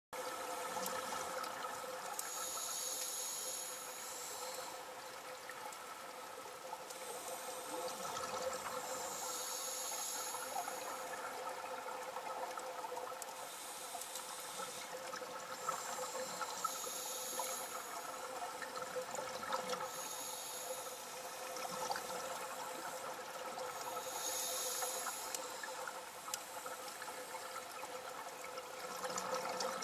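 Underwater sound of a scuba diver breathing through a regulator: hissing bursts every few seconds over a steady hum and a faint continuous crackle.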